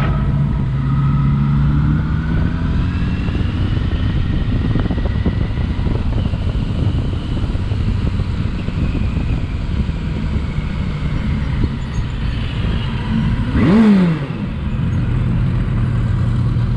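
Motorcycle riding at a steady speed: the engine runs with an even low hum under a haze of road noise. About two-thirds through, a brief louder sound falls in pitch.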